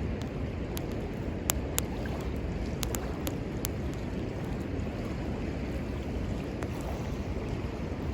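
Wood fire crackling, with sharp pops scattered irregularly (a cluster between about one and four seconds in), over a steady rush of river water.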